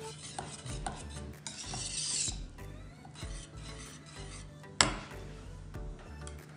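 Wire whisk stirring thick cooked cocoa pudding in a stainless steel pot, with repeated scraping strokes against the pot. A single sharp knock about five seconds in is the loudest sound.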